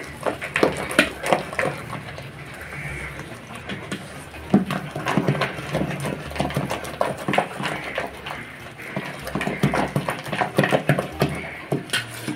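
Ground urad and moong dal batter beaten by hand in a steel bowl: a run of wet slaps and squelches, several a second, softer for a moment about two seconds in. The beating is whipping air into the batter until it turns light.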